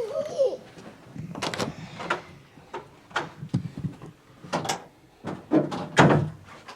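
A series of irregular knocks and clunks, like doors or drawers being handled, with a brief wavering whine at the very start.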